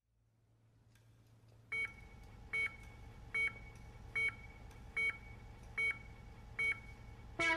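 A steady low electronic hum fades in, and over it come seven short, evenly spaced electronic beeps, about one every 0.8 seconds. Right at the end a louder swell begins, leading into music.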